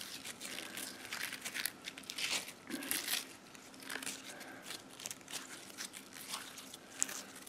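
Sticky gold-flake slime being kneaded and pulled apart by hand, giving faint, irregular sticky crackles and small pops.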